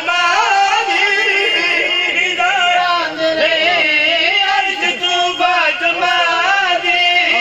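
A man's voice, amplified through a microphone, chanting his recitation in a sung style with long held notes that bend up and down.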